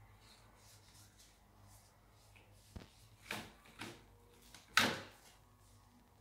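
A few short knocks and scrapes against an open plastic pedal bin as a stick toy is poked into it and flicked about, the loudest a little before the end.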